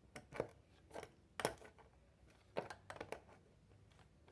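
A wrench tightening the nut that holds a fan motor's speed switch: a series of irregular small metal clicks and taps, the loudest about a second and a half in.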